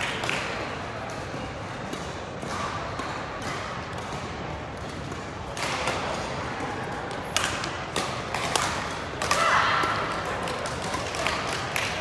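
Badminton rally: rackets striking the shuttlecock in a series of sharp hits that come thick in the second half, over a background of distant voices in the hall.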